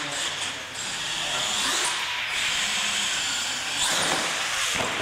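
Radio-controlled monster truck's small motor whining as it drives across the concrete floor, the whine rising and falling with the throttle and swelling about four seconds in as it climbs a ramp.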